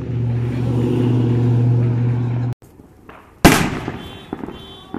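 Firework shell bursting overhead with one loud bang about three and a half seconds in, fading off, followed by a few small crackling pops. Before it, a steady low hum cuts off abruptly.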